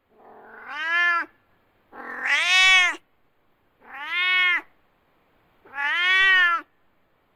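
A domestic cat meowing four times, about once every two seconds; each meow lasts about a second and rises then falls in pitch, the second one the loudest.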